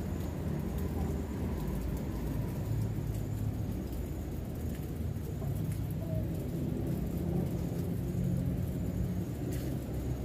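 A steady low rumble with a faint hum.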